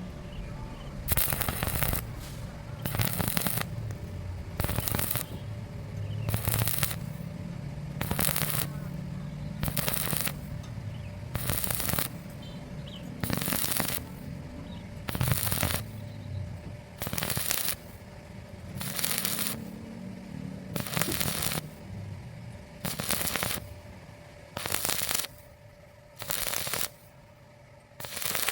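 Arc welding in short stitch-weld bursts: crackling spurts about half a second long, roughly one every two seconds, with a low hum between them.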